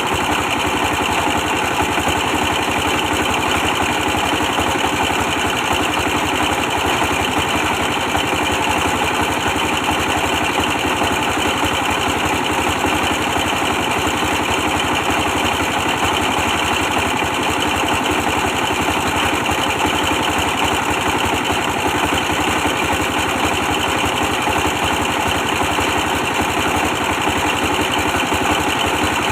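Old 24 hp diesel engine running steadily as it drives a brick press machine.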